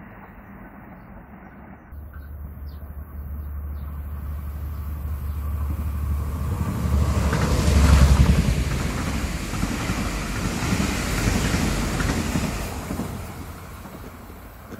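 ITX-Saemaeul electric multiple-unit express train passing close by at speed. Its rushing rumble of wheels on rail builds over several seconds, is loudest about eight seconds in as the cars go past, then fades as the train draws away.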